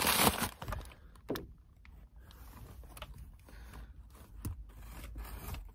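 A paper bag rustling as a hand rummages in it, loudest in the first half second, then quieter handling with a couple of small clicks.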